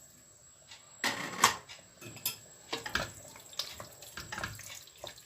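Kitchen clatter: a few irregular knocks and clinks of utensils against pots and dishes, the loudest about a second and a half in, then lighter scattered clinks.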